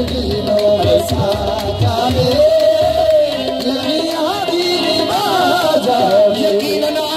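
Sufi devotional song accompaniment: a wavering melodic line that bends up and down in pitch, over hand-drum strokes that thin out about halfway through.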